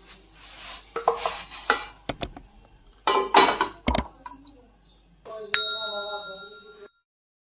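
Metal kitchenware clattering and clinking as a cooked paratha is lifted off the iron tawa onto a plate, with sharp clinks about two and four seconds in. A ringing ding comes near the end, and the sound cuts off abruptly about seven seconds in.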